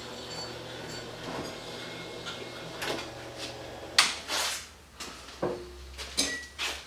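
Clicks, taps and clatter of small plastic and metal parts being handled while an arc fault circuit breaker is taken apart. The sharpest knock comes about four seconds in.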